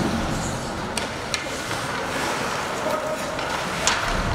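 Ice hockey play: a few sharp clacks of sticks and puck, three in all with the loudest near the end, over a steady hiss of skates and rink noise.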